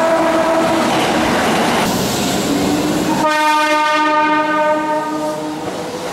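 Keihan electric train horn: one blast dies away about a second in, then a second, longer horn blast starts about three seconds in and lasts over two seconds. Both come over the clatter of a train running along the platform.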